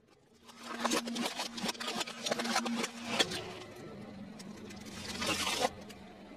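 Car engine running slowly, a steady low hum, under a dense crackle of sharp snaps and clicks as objects are crushed beneath a tyre; the hum drops a little in pitch about three seconds in.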